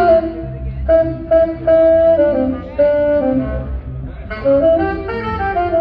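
Live band playing amplified music: a horn melody of held notes, moving up and down in pitch, over a pulsing low rhythm section.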